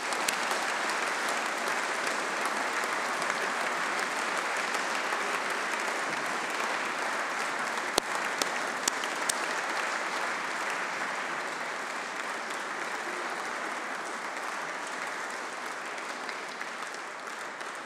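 Sustained applause from a large seated audience, easing off gradually over the last several seconds.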